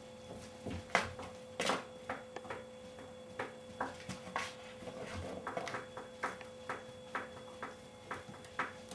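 Irregular soft clicks, taps and scuffles as a dog and kittens play-wrestle on a rug over a tiled floor, over a steady faint electrical hum.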